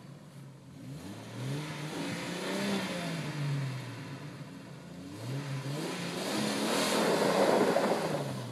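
A 1997 Jeep Wrangler TJ's 4.0-litre straight-six revs up twice, its pitch rising and falling each time, as the tyres spin on dirt. On the second, louder rev there is also the hiss of dirt being sprayed.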